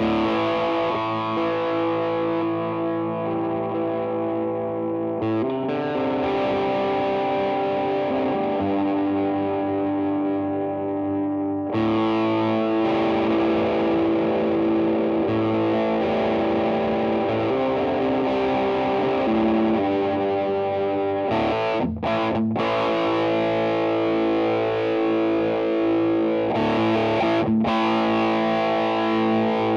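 Yamaha Studio Lord Les Paul-copy electric guitar played on its vintage Japanese PAF-style bridge humbucker through a Vox AC30 amplifier, with overdrive. It plays sustained, ringing chords that change every few seconds, with short breaks about two-thirds of the way through and near the end.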